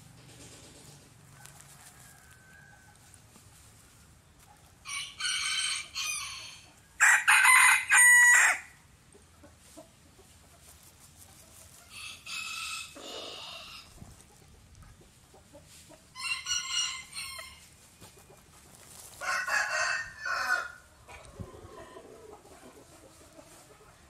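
Chickens calling: about five separate high, strained calls of a second or two each, with quiet between them; the loudest comes about seven seconds in.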